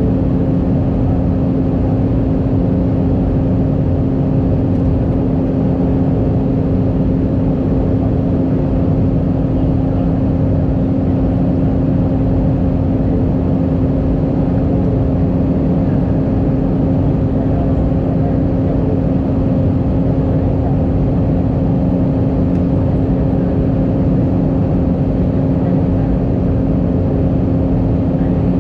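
Airbus A319 cabin noise in flight from a seat over the wing: a steady rush of air and jet-engine noise with a constant low hum.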